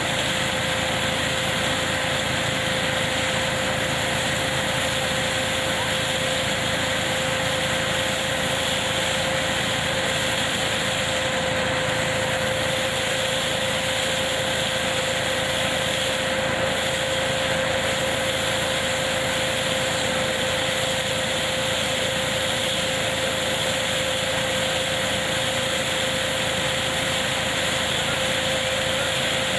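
Tractor-driven hazelnut harvesting machine running steadily, with a constant whine over a rushing machine noise.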